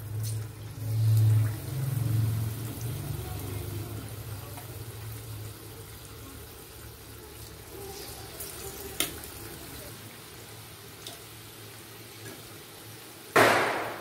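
Kuttu-batter pakoras deep-frying in hot oil in a kadhai, a steady sizzle as battered potato pieces go into the oil. A short, much louder burst of noise comes near the end.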